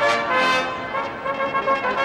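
A brass fanfare played on long fanfare trumpets with hanging banners, several players sounding a sustained chord together that eases slightly in the middle.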